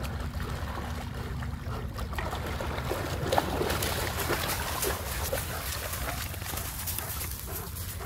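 Dogs running through shallow water, their legs kicking up splashes that grow louder from about two seconds in and tail off near the end, over a steady low rumble.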